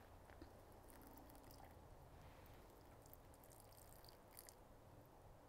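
Near silence, with a few faint soft rustles and ticks.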